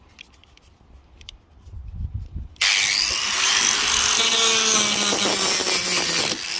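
Electric angle grinder switched on about two and a half seconds in, running steadily with its disc against the rusty steel scuttle seam of a Ford Cortina Mk4: a loud grinding of metal with a faint motor whine. It dips briefly near the end.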